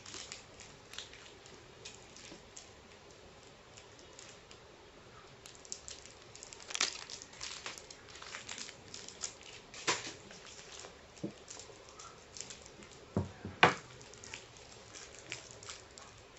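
Plastic wrapper of a Perk chocolate bar crinkling and crackling as it is cut with scissors and pulled open by hand. Scattered small clicks build into busier crackling, with a few sharper snaps, the loudest about three-quarters of the way through.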